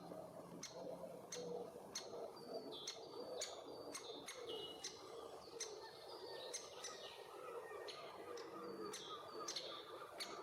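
Great spotted woodpecker calling: short sharp notes repeated a little more than once a second, with other birds' thin whistled songs in between.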